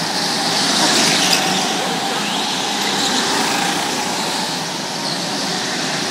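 Several small single-cylinder go-kart engines buzzing as karts race around an indoor track, their sound echoing through the hall; it swells as a kart passes close about a second in.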